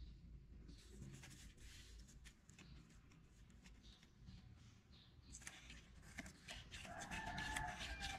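Faint scratching, rustling and small taps of fingers handling a corrugated cardboard marble-run ramp. The handling noise gets busier toward the end, where a brief faint ringing tone is also heard.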